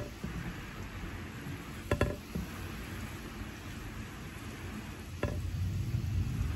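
Steady rain falling, with single drips landing every few seconds with a short ringing ping. From about five seconds in, a low rumble of distant thunder swells up under the rain.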